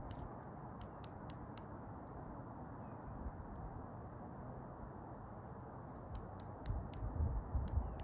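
Sharp little clicks from a Carolina wren pecking at a wire-mesh tube feeder, in a cluster about a second in and another near the end, over a steady background hiss. Wind buffets the microphone with low rumbles near the end, and a faint short bird chirp comes about halfway.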